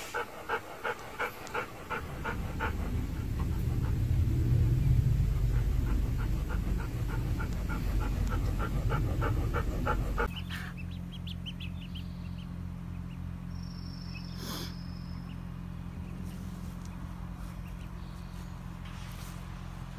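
A golden retriever panting in quick, even breaths, about three a second, joined by a louder low rumble for several seconds. After a sudden change about ten seconds in, a steady low hum follows, with a few faint high chirps.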